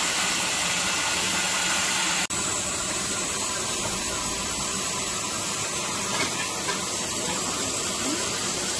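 Steam locomotive hissing steadily as steam escapes. The sound breaks off for an instant about two seconds in and then carries on slightly quieter.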